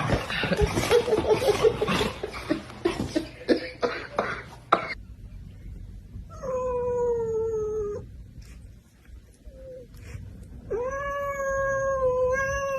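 A jumble of knocks and rustling noise for the first few seconds, then two long, drawn-out animal yowls, each lasting one to two seconds. The first slides slowly down in pitch; the second rises and then holds.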